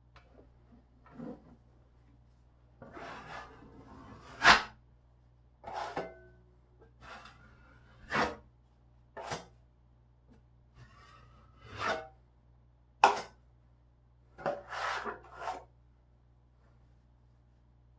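Rasping, scraping strokes of a tool worked over a drywall patch, about a dozen irregular strokes, a few with a brief squeak.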